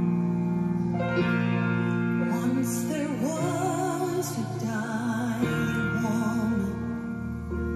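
Gospel song: a grand piano plays the accompaniment, and a woman's solo voice comes in about two seconds in, singing with vibrato into a microphone.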